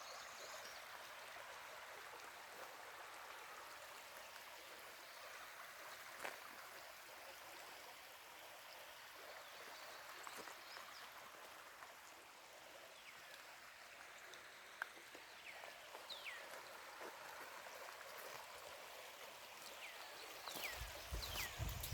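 Quiet, steady rushing of a stream, with short falling bird chirps coming in now and then over the second half. Low thumps near the end.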